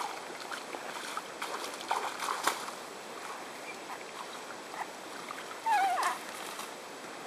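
Quiet open-air background at the edge of a fishing pond: a steady faint hiss with a few light clicks, and a short warbling tone that wavers upward about six seconds in.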